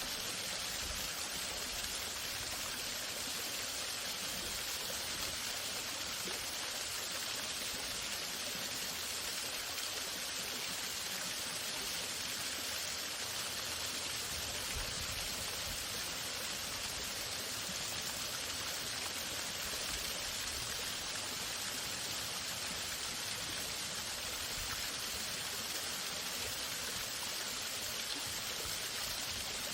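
Waterfall: water falling and rushing in an even, unbroken hiss.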